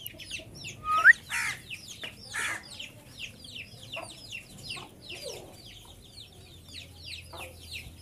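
Chickens peeping continuously: short, high, falling chirps several times a second. A louder short rising squeak comes about a second in, and a couple of brief hissy rasps follow it.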